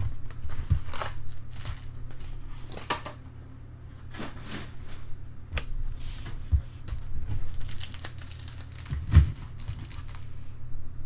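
Plastic foil wrappers of trading-card packs crinkling as they are torn open and handled, in irregular rustles, with a single thump about nine seconds in and a steady low hum underneath.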